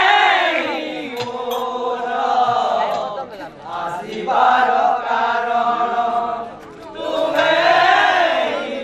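Male voices chanting a devotional kirtan line in long held notes, in three phrases with short breaks about three and a half and seven seconds in.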